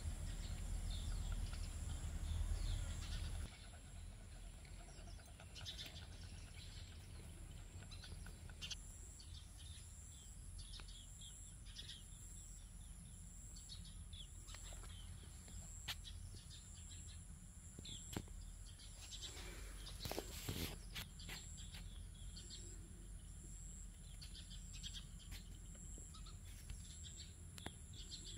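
Small birds chirping repeatedly outdoors over a steady high-pitched hum. A low rumble fills the first few seconds, and a few soft clicks and a brief louder noise come later.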